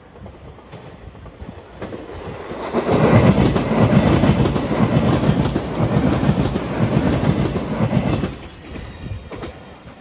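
JR Shikoku 8000 series electric limited express, in white Anpanman livery, passing close by with wheels running on the rails. The sound builds for about a second, is loud for about five seconds as the five cars go by, then falls away fairly suddenly as the last car passes.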